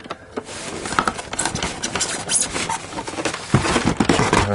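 Rubbing and scraping of polystyrene foam packaging against a plastic Huina RC excavator as it is tugged out of its box insert, with heavier scraping near the end; the model will not come free because its bucket is caught in the foam.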